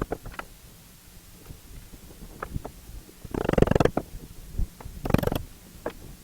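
Metal workshop parts being handled: scattered light clicks and knocks, with two louder scraping rattles about three and a half and five seconds in.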